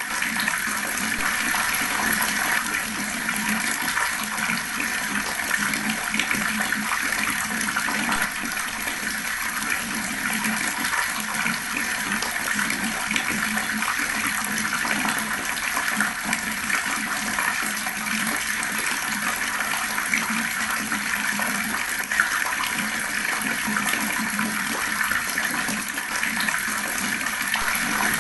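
Fast-flowing water rushing steadily and evenly.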